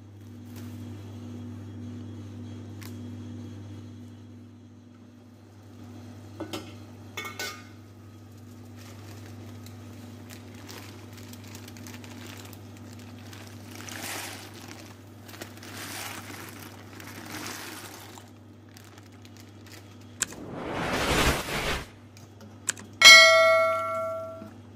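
Pot of water boiling on a stove over a steady low hum. About twenty-one seconds in, a loud rush of noise swells for a second or so. Just after, a metal pot or utensil clangs once and rings: the loudest sound.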